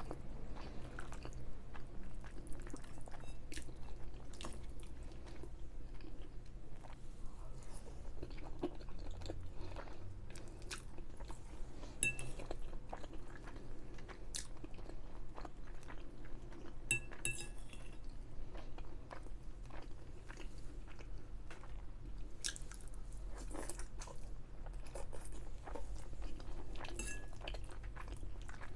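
Close-up chewing of creamy fettuccine Alfredo pasta: soft, wet, irregular mouth sounds with small clicks, and now and then a light clink of cutlery on the plate.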